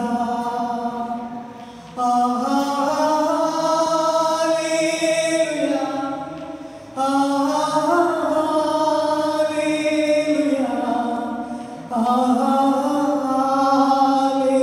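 A man singing in long, chant-like held phrases into a microphone: three phrases, each starting suddenly and held for several seconds before tapering off, with small slides in pitch.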